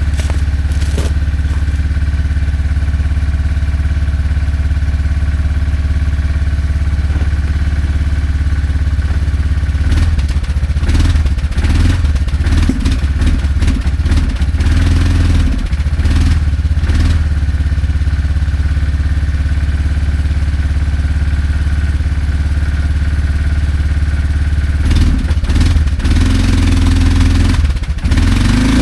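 Four-wheeler (ATV) engine running steadily after being started. Its note rises and falls a few times in the middle and again near the end. The machine had sat unused for a couple of months.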